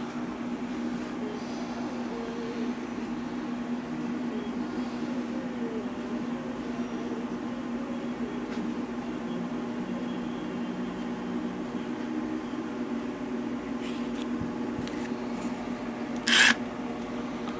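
A steady low hum throughout, and near the end a brief, loud whir as the Milwaukee M18 Fuel 2857 1/4" hex impact driver's trigger is blipped, spinning its motor for a moment.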